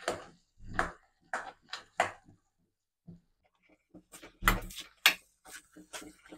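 Metal spoon knocking and scraping against a stainless steel kadai as thick ground moong dal paste is stirred and broken up: a string of sharp clinks, a pause of about a second and a half in the middle, then a louder cluster of knocks.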